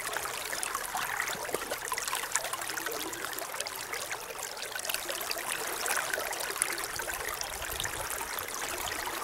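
Steady flow and trickle of a shallow river's current.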